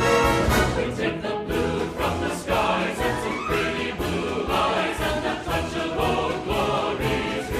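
Background music: orchestral music with a choir singing.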